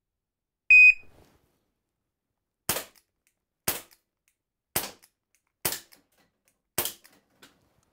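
RU Ready shot timer's start signal, one short high beep, followed by five shots from a CO2-powered Crosman Vigilante air pistol firing pellets, about a second apart.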